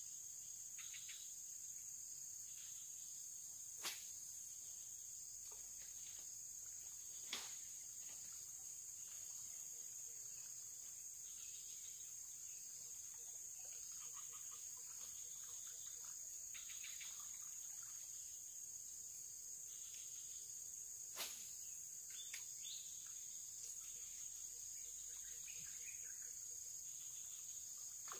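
Steady high-pitched insect chorus, with a few faint chirps and three sharp clicks spread through it.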